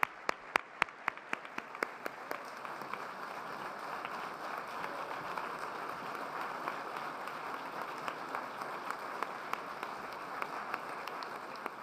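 Audience applauding after a speech: a few sharp, close hand claps at about three a second at first, then dense, steady applause filling in and holding.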